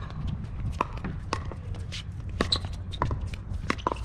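Pickleball rally: paddles popping against a hollow plastic ball and the ball bouncing on the hard court. It comes as an irregular string of sharp pops, some with a short hollow ring, mixed with shoes scuffing on the court.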